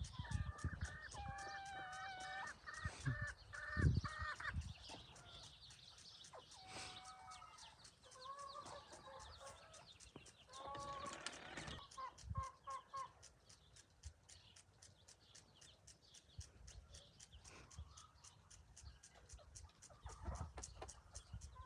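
A mother hen clucking as she leads her chicks, with short repeated calls that come in bunches, busiest in the first few seconds. A couple of low thumps come near four seconds in.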